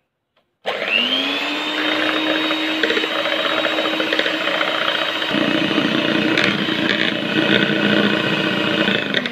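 Electric hand mixer beating egg whites to a foam. Its motor spins up with a rising whine just under a second in, runs steadily, and winds down near the end.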